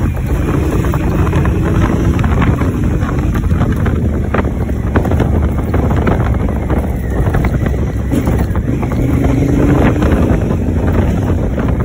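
Honda Africa Twin motorcycle riding steadily on a dirt track: wind buffeting the microphone over the parallel-twin engine's running, with a few sharp knocks from the rough surface.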